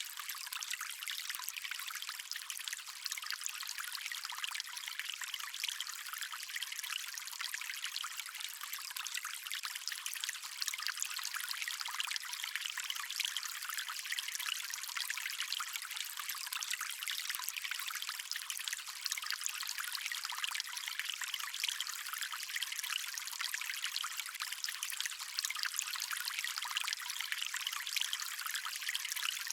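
Stream water flowing in a steady, even rush of splashing and trickling, bright and hissy with almost no low rumble.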